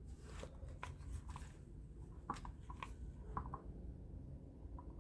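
Faint scattered light clicks and taps, as of small parts being handled, over a low steady hum.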